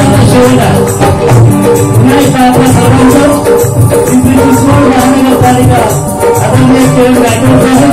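Live Marathi stage band music: a melody in long held notes over a steady beat of drums with a shaker-like rattle.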